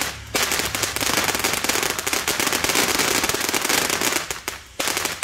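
Ground fountain firework spraying sparks with a dense, rapid crackle of popping stars. The crackling starts just after the opening, drops away for about half a second a little past four seconds in, then picks up again.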